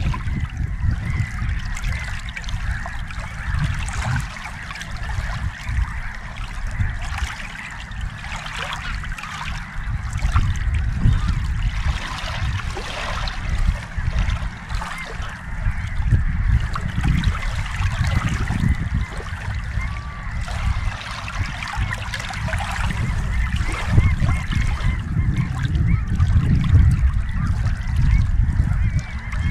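Choppy lake water lapping and splashing against an inflatable kayak, under a low, uneven rumble of wind buffeting the microphone. Waterfowl call now and then in the background.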